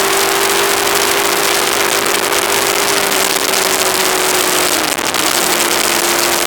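Aprilia ETV1000 Caponord motorcycle on the move, heard as a loud, even rush of wind noise on a camera microphone mounted on the bike. Under it runs one steady engine tone that sags slowly and dips briefly about five seconds in.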